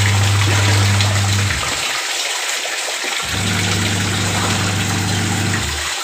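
Water pouring and churning in the wash tub of a Whirlpool Magic Clean semi-automatic twin-tub washing machine. The wash motor hums in two runs of about two seconds each, with a pause between, as the agitator turns the water.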